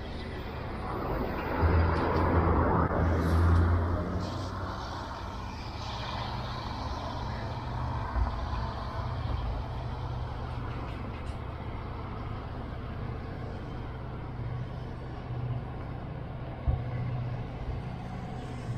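Freight train of bogie hopper wagons rolling slowly past, a steady low hum and rumble of wheels on rail, louder for a couple of seconds near the start. A few single sharp knocks, about eight seconds in and near the end.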